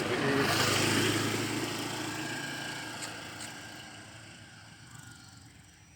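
Motor vehicle engine running, loudest about a second in, then fading steadily as it moves away.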